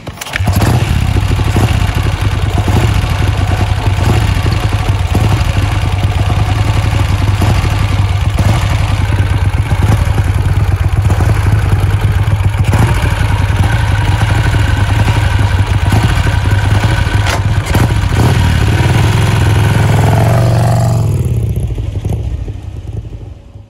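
Vincent 1000 cc V-twin motorcycle engine started by the kick-start, catching almost at once and then running with a steady, loud beat. Near the end it revs up as the bike pulls away, and the sound fades out.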